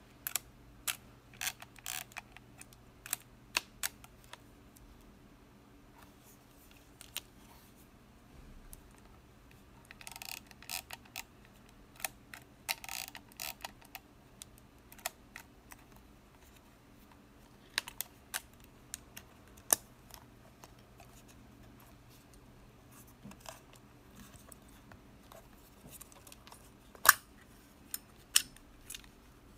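Olympus PEN-EE S half-frame camera being handled and operated: a series of sharp mechanical clicks with a couple of short ratcheting runs, as of the shutter release and the thumbwheel film advance. The loudest click comes near the end, as the back cover is taken off.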